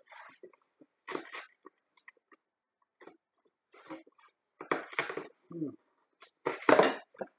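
Cardboard packaging being pried and torn apart by hand: several short crunching, rustling bursts, the loudest near the end.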